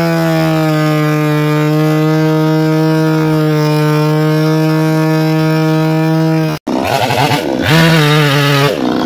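Two-stroke petrol chainsaw cutting lengthwise through a thick chestnut beam, running at a steady high pitch. About two-thirds of the way through the sound breaks off abruptly for an instant, and then the saw's revs rise and fall.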